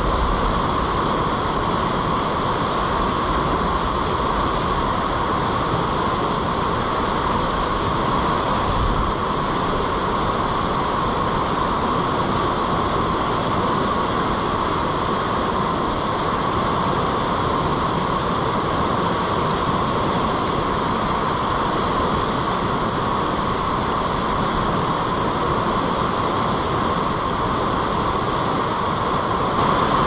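River rapids running high and fast, a steady, unbroken rush of water.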